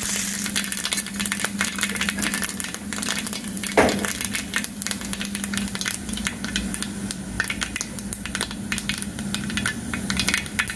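Hot coconut oil sizzling and crackling in a metal kadai as a spoonful of dal fries in it, a dense patter of fine pops over a steady low hum. A brief louder sound cuts in a little under four seconds in.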